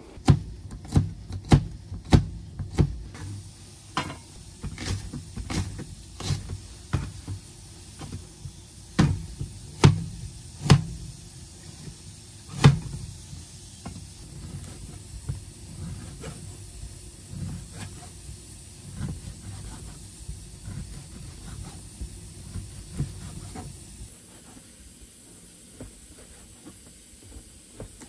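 Kitchen knife chopping on a plastic cutting board, irregular sharp knocks as ginger and then sausage are cut, with several loud chops in the first half and lighter, quicker cuts later.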